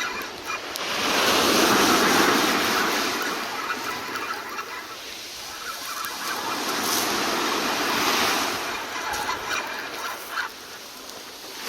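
Sea waves washing in on the shore, swelling twice, the first swell the loudest.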